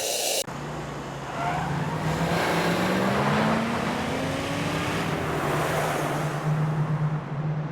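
A car driving, its engine tone rising slowly as it accelerates over a steady rush of road noise.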